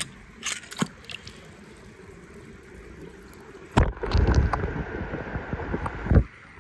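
Water splashing and sloshing as a toy car is moved through a small pool of water, starting suddenly about four seconds in and stopping abruptly about two seconds later. A few light clicks come in the first second.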